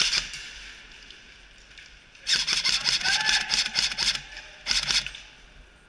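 Airsoft guns firing on full auto in rapid clicking bursts. One burst trails off at the very start, a longer burst starts about two seconds in and runs nearly two seconds, and a short burst comes near the end.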